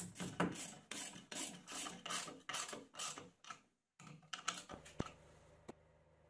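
Ratchet wrench tightening a bolt through a wooden bracket into a concrete wall: quick bursts of pawl clicking, about two or three strokes a second. After a short pause come a few more clicks and two sharp ticks.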